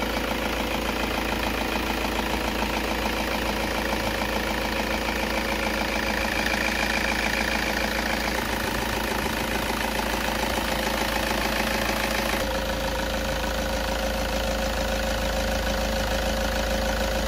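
Toyota Innova's 2KD-FTV 2.5-litre four-cylinder common-rail diesel engine idling steadily.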